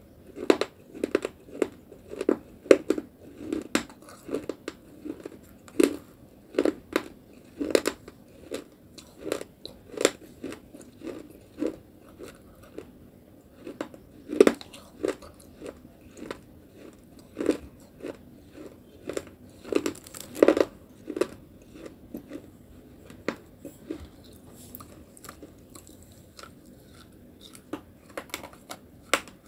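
Close-up crunching and chewing of fired clay pot pieces coated in paste: crisp crunches about once or twice a second, with quieter stretches about midway and again after two-thirds, picking up again near the end.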